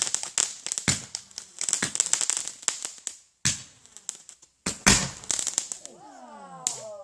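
Consumer fireworks going off: a rapid string of sharp cracks and reports, broken by two short pauses each ended by a single louder bang, then a last run of crackling that dies away near the end.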